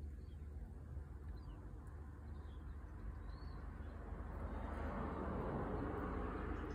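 Faint outdoor ambience: a steady low rumble with a few faint bird chirps, then a broad wash of noise swelling up over the last few seconds.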